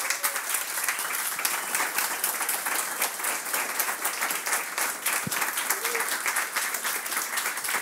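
Audience applauding steadily at the end of a talk.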